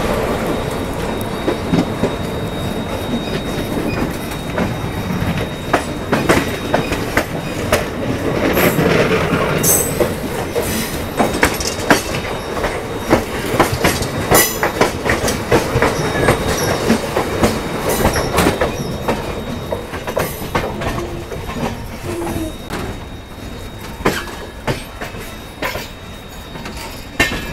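Indian Railways passenger coach running on the track, with the steady rumble of wheels on rail and irregular sharp clacks as the wheels cross rail joints and points. The running noise grows somewhat quieter over the last few seconds.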